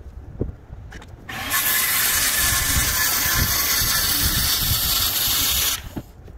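Circular saw cutting through a sheet of roof decking. It starts up a little over a second in, runs loud and steady through the cut for about four and a half seconds, then stops suddenly.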